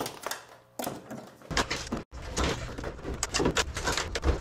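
Wire cutters clipping twisted stitching wires on a plywood kayak hull, with the wires being wiggled out: a string of sharp clicks and scraping rustles. The sound breaks off for an instant about two seconds in, then the clicking and handling go on over a low hum.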